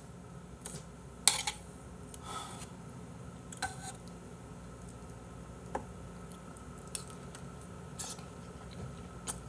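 A metal spoon clinking and scraping against bowls as food is scooped up, in about a dozen short, light strikes scattered over several seconds.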